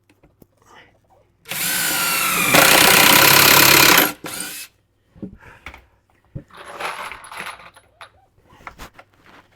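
Power drill running under load for about two and a half seconds, its pitch dipping at first and then holding as it gets louder, followed by a short second burst. Fainter knocks and handling clatter come afterward.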